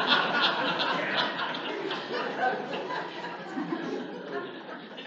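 Church congregation laughing at a joke, the laughter fading away over a few seconds.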